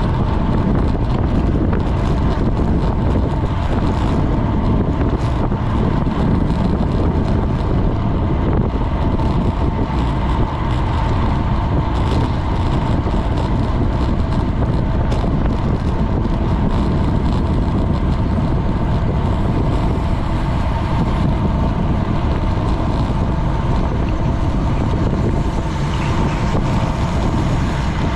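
Steady wind rush over a GoPro's microphone from riding a road bicycle at speed, with a faint steady hum underneath.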